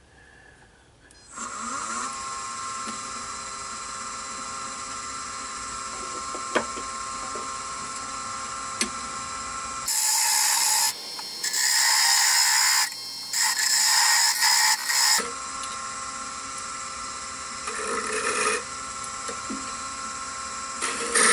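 Nova wood lathe starting up and running with a steady motor whine, then a parting tool cutting into the spinning wooden hammer-handle blank in several loud scraping bursts from about ten seconds in, once more briefly later and again near the end: sizing cuts taking the handle down to 3/4 of an inch.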